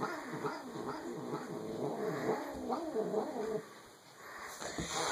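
Domestic cat giving a long, low warbling yowl, its pitch wobbling up and down about three times a second, stopping about three and a half seconds in; a fainter sound follows near the end.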